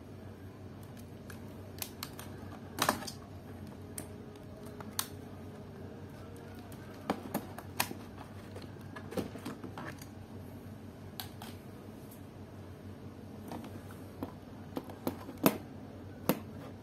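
Irregular plastic clicks and knocks as the battery latches of a Samsung NP300E4X laptop are slid and the battery pack is pulled out of its bay, with a cluster of sharper clicks near the end.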